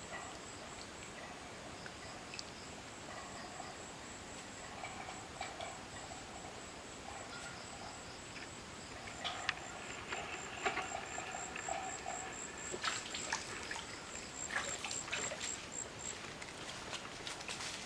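Water trickling and splashing in a small creek, with sharp clicks and splashes that get busier after about nine seconds. A high, steady pulsing chirr runs over it and stops near the end.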